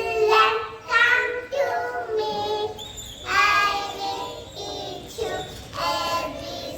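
Young children singing, in short high-pitched phrases.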